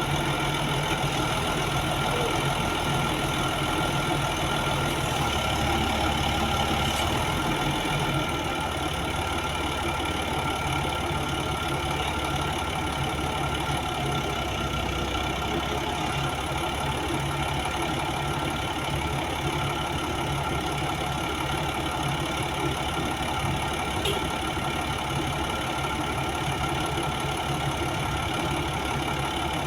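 Heavy-equipment diesel engine running steadily at an even, idle-like speed, with no revving.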